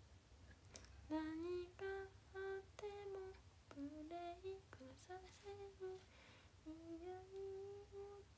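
A young woman quietly humming a melody to herself: a string of short and held notes that starts about a second in.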